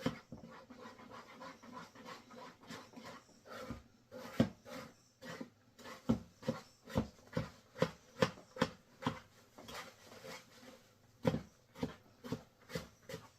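Wet, sticky bread dough, with shredded cheese mixed in, being squished and worked by hand in a bowl. It makes repeated soft squelching strokes, sparse at first, then a steady rhythm of about two a second.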